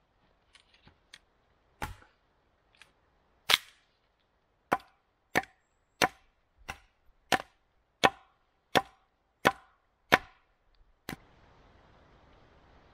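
Short-handled axe chopping into a freshly cut log round to hew out a flat slab of wood: about a dozen sharp blows, most in a steady run of roughly one every two-thirds of a second, ending near the end.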